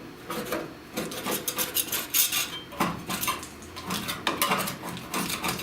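A metal hand tool scraping and clinking against a car's steel body panel in quick, irregular strokes, working softened paint and body filler loose.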